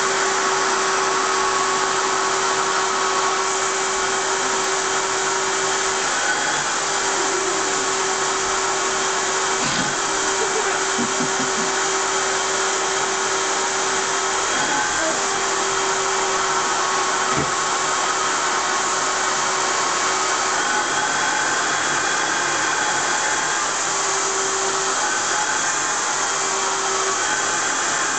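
Vacuum cleaner running steadily: a rush of air over a steady motor hum. A couple of brief knocks come about ten and seventeen seconds in.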